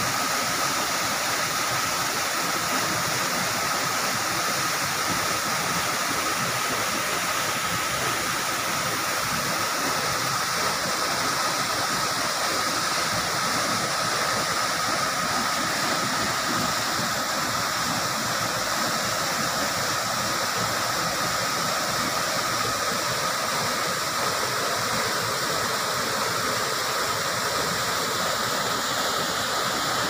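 Small waterfall pouring off a rock ledge into a pool: a steady, unbroken rush of falling water.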